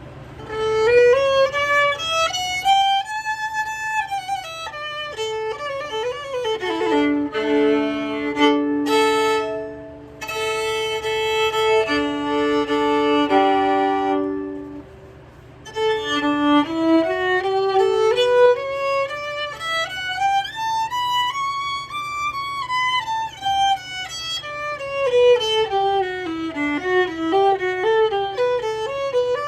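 Solo violin playing scales that run up and down, with two notes held together as double stops in the middle and a brief pause about halfway through.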